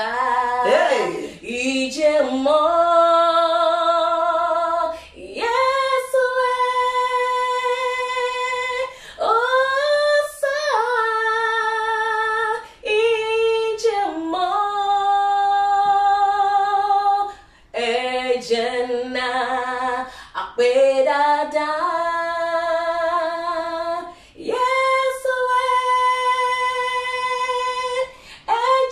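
A woman singing a gospel praise song unaccompanied, in long held notes with vibrato, phrase after phrase with short breaths between.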